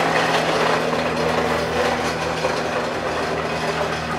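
Plastic toy push lawn mower rattling and clattering as it is rolled across a garage floor, over a steady low hum. The clatter eases near the end.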